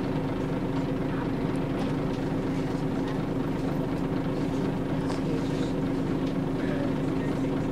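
Scania DSC9 diesel engine of a Scania L94UB bus running at a steady engine speed, heard from inside the passenger saloon as a constant drone.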